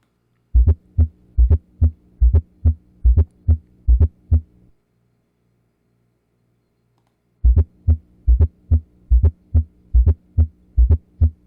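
Recorded heartbeat with a fourth heart sound (S4, atrial gallop): a soft extra low sound falls just before each first heart sound, giving a galloping rhythm of dull thumps. This is the sign of a stiff, hypertrophied ventricle under pressure overload. The recording plays twice, with a silence of about three seconds between, over a faint steady hum.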